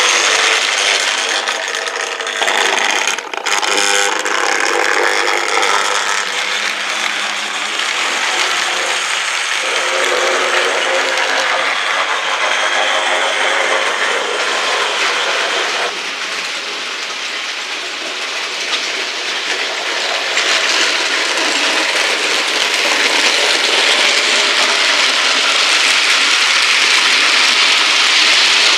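OO gauge model trains running on the layout's track: a steady whirring rattle of locomotive motor, gears and wheels on rail. It dips for a few seconds in the middle, then builds again as a goods train of wagons passes close.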